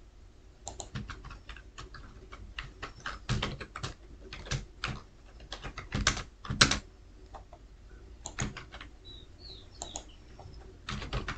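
Typing on a computer keyboard: irregular keystrokes in short runs, with brief pauses between them.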